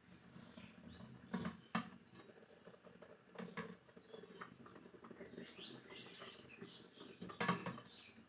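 A few short knocks and clicks, the loudest about seven and a half seconds in, over faint high chirping.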